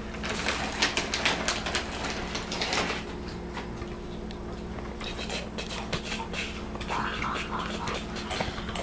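Rustling and light clattering of things being handled and people moving about, with many short clicks in the first few seconds and again near the end, over a steady low electrical hum.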